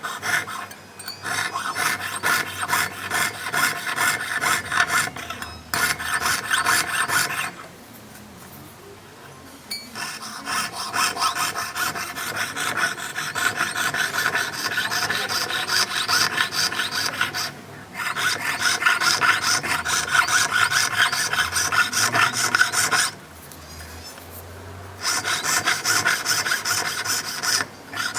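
Rapid rasping strokes of a hand tool cutting or shaping 18K gold, in stretches of steady stroking broken by a few short pauses, the longest about two seconds long.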